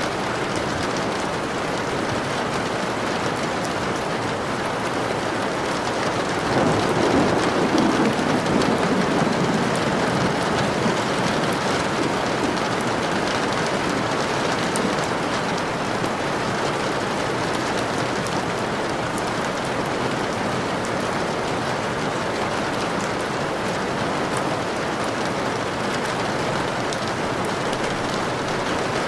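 Steady rain falling, with a low rumble of thunder swelling about six seconds in and fading over a few seconds.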